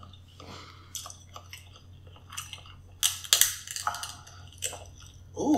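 Close-miked mukbang eating sounds: seafood shells cracking and being pulled apart, with wet chewing. A louder cluster of crackles comes about three seconds in.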